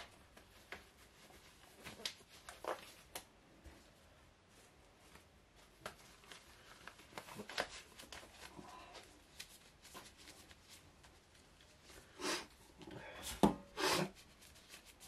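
Faint scattered taps and rustles of handling, then a few louder knocks and scrapes near the end as a stainless steel tray is slid across a wooden worktop.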